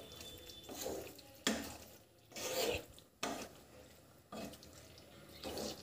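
A spoon stirring and scraping through thick curry gravy in a nonstick pan, in a series of short, irregular scraping strokes as cream is mixed in.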